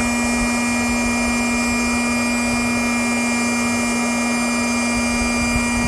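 Electric air pump for an inflatable boat running steadily, a constant motor hum with a whine and the hiss of rushing air.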